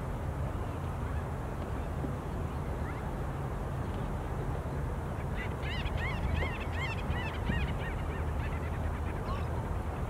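A bird gives a quick run of short, rising-and-falling calls for about two seconds, starting about halfway through, with one fainter call near the end, over a steady low rumble.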